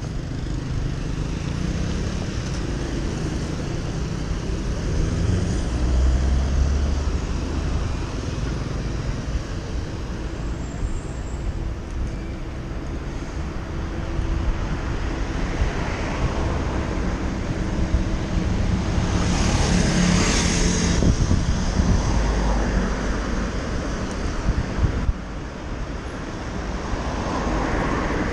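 City street traffic heard from a moving bicycle through a GoPro action camera's microphone, with a steady low rumble of wind on the microphone under the passing cars. A louder hissing surge, as of a vehicle going by close, comes about two-thirds of the way through.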